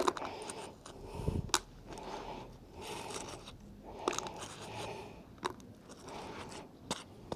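Rubber-gloved hands scraping rusty debris and small finds off a magnet-fishing magnet: repeated crunching scrapes with about five sharp metallic clicks as bits snap free.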